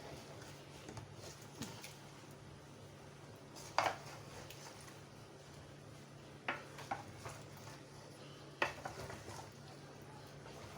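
Cookware clinking as a pot of simmering chicken is checked: a few sharp metallic clinks from the pot, lid and spoon, spaced a few seconds apart, over a low steady hum.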